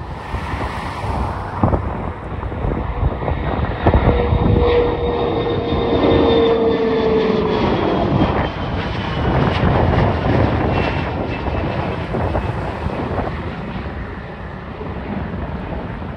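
Airplane taking off and passing by, its engine noise swelling to a peak in the middle, with a hum and a high whine that both drop in pitch as it goes past, then easing off.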